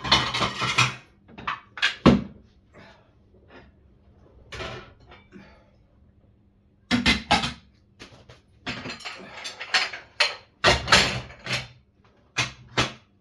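Irregular knocks, thuds and clatter of household things being handled, such as cupboard doors and dishes, with short quiet gaps between.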